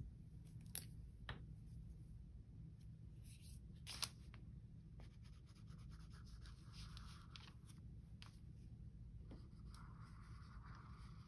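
Faint paper handling over a low steady hum: a few light taps and soft rubbing as a sheet of paper is glued down and smoothed by hand.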